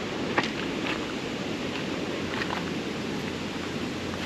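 Steady rush of the Lech river's water below the Lechfall waterfall, with a few faint clicks in the first half.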